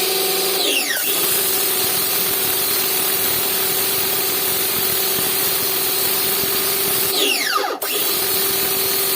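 Bosch AQT 110 pressure washer running on its newly fitted replacement motor: a steady motor hum over a loud hiss. Twice, about a second in and again near three-quarters through, the motor winds down with a falling whine and at once starts up again.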